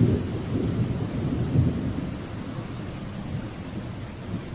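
Heavy rain falling steadily, with low rolls of thunder that swell near the start and again about one and a half seconds in, then die away.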